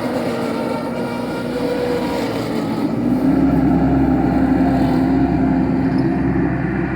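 Wacker Neuson SM100 mini skid steer's engine running steadily, its note changing and growing a little louder about three seconds in as the machine works.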